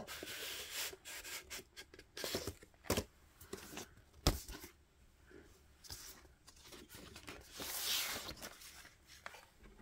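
Cardboard LP sleeve and paper inner sleeve being handled: rubbing and sliding, with a few sharp knocks and a louder paper rustle about eight seconds in as the inner sleeve is drawn out.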